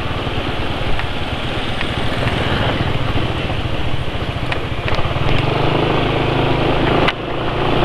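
Motor scooter engine running while riding, with wind and road noise; the rider calls the engine note a bit rough on its current oil. The engine note changes about five seconds in.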